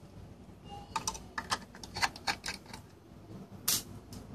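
A run of light, irregular clicks and taps, about a dozen over two or three seconds, with a louder one near the end.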